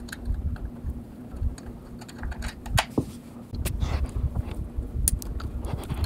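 Handling noise: irregular clicks, taps and light knocks, with low thumps from hands or a handheld camera moving about, over a faint steady hum.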